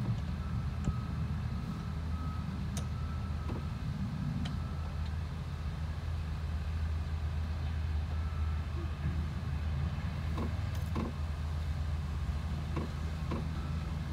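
Tractor engine running steadily with a low hum, with a few light knocks now and then.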